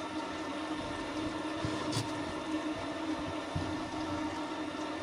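Pull-out kitchen sink sprayer on its sprinkler setting, running lightly: a steady hiss of water spraying onto the soil of a seed-starting tray, with a steady hum underneath and a single click about two seconds in.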